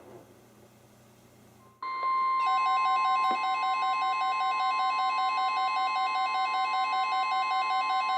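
NOAA Weather Radio's steady 1050 Hz warning alarm tone comes on sharply about two seconds in. Half a second later a weather-radio receiver's own alert beeping joins it, a rapid repeating beep several times a second. Together they signal an incoming warning, here ahead of a flood warning statement.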